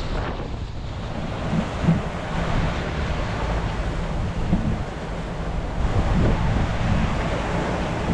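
Wind buffeting the microphone over the steady rush of the sea, on a sailing yacht under way.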